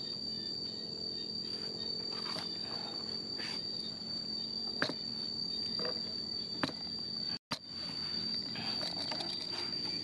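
Steady high-pitched insect whine, one unbroken tone, with a couple of sharp taps. It cuts out for an instant about halfway in.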